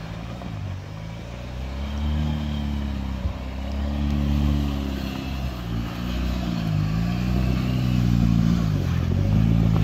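Off-road truck engine running under load, its pitch rising and falling about four times as the throttle is worked up and back off.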